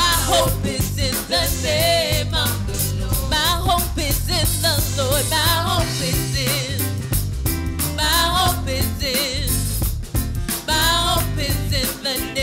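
A woman singing a gospel worship song into a microphone, backed by a live band with a drum kit.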